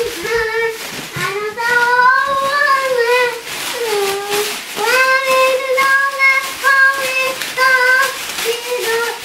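A child singing a simple tune, holding each note, with short breaks between phrases.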